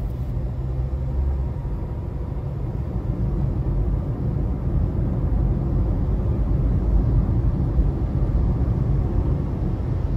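A car driving along a highway: a steady, low rumble of road and engine noise.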